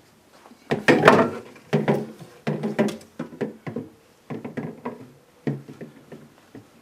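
Irregular clunks, knocks and rattles of plastic and wire refrigerator parts being handled and set back into place, the loudest clatter about a second in.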